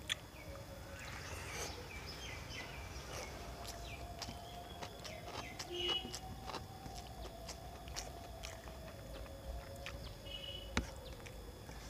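Quiet eating sounds: fingers mixing rice on a steel plate and chewing with many small clicks and smacks. A bird chirps briefly twice, about six and ten and a half seconds in.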